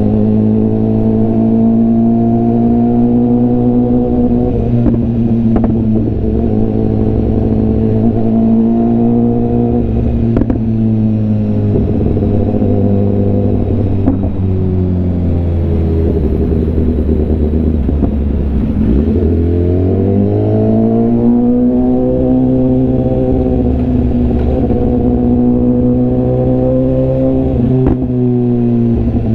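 BMW S1000RR inline-four exhaust note, heard from the rider's seat while cruising. The engine speed holds fairly steady, falls briefly about two-thirds through, then climbs back.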